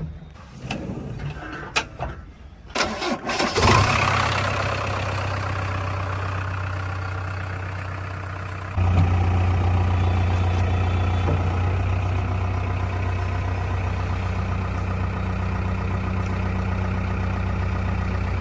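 A diesel engine is cranked and started: a few sharp clicks, then it catches a few seconds in and settles into a steady run. About halfway through its level steps up suddenly, and it runs on louder and steady.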